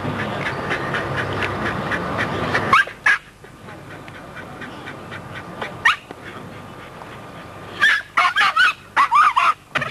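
Plummer terriers yelping and yapping: two sharp rising yelps, then a quick run of shrill yaps from about eight seconds in. A steady noisy background drops away about three seconds in.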